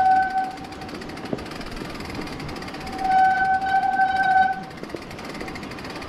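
Mountain bike disc brakes squealing in a steady high tone, wet from the muddy trail: a short squeal at the start and a longer one about three seconds in. Between the squeals the tyres roll over wet dirt and gravel.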